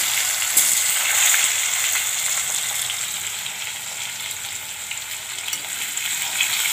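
Potato wedges deep-frying in hot oil in a kadai: a steady sizzle with scattered small crackles. Near the end a spatula stirs them in the oil.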